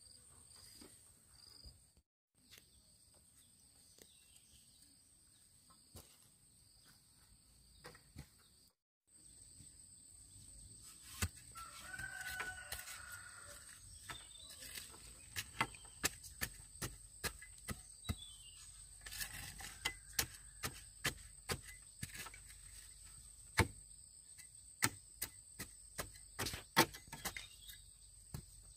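A rooster crows once, about twelve seconds in. From about ten seconds on come sharp, irregular knocks and taps, one or two a second, and these are the loudest sounds.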